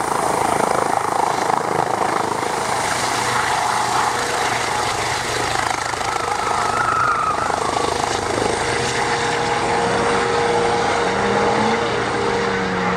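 Eurocopter EC135 T2 helicopter lifting off and climbing away: steady rotor and twin-turbine noise with a high, constant turbine whine.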